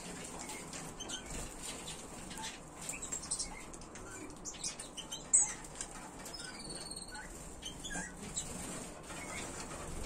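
Small finches in an aviary: scattered short chirps and calls with wing flutters, a louder chirp about halfway through and one longer call a little after it.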